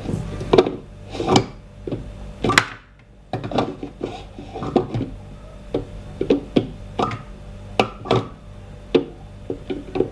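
Espresso machine portafilter clicking and knocking against the group head as it is pushed up and twisted to lock in, a run of sharp uneven clacks; the handle is a tight fit.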